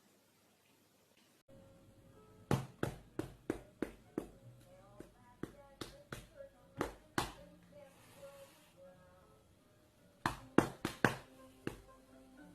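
A series of sharp knocks in quick runs, the loudest cluster about two and a half seconds in and another near the end, over faint music.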